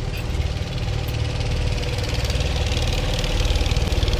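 Motorboat engine running steadily with a fast, even knocking beat.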